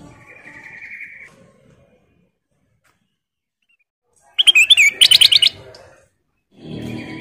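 Kutilang emas, a bulbul, giving a loud burst of quick, high chirping and whistled notes about four and a half seconds in, after a faint buzzy note at the start and a pause. A low rumbling noise follows near the end.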